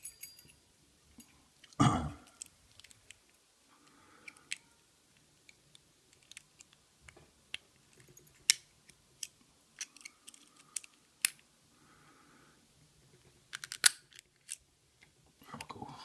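Knife blades being slid and worked down both sides of the shackle of a brass Asec Security padlock to bypass its locking mechanism: scattered light metal clicks and scrapes. There is a handling thump about two seconds in and a quick run of clicks near the end, as the shackle is worked free.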